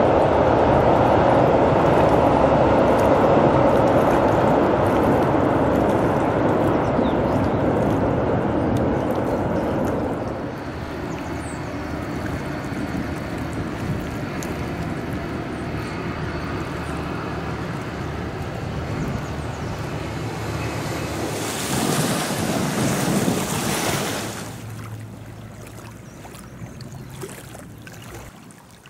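Train rumbling across a steel truss bridge. The rumble stays loud for about ten seconds, then drops away. After it comes steadier wind and water noise, with a louder rush of wind for about two seconds shortly before it fades.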